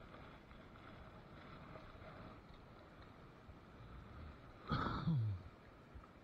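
Faint steady river noise, then about five seconds in a person's short grunt that drops in pitch.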